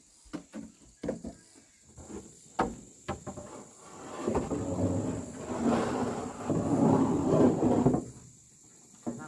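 Several sharp knocks, then about four seconds of loud, rough rumbling noise that cuts off suddenly, and one more knock near the end.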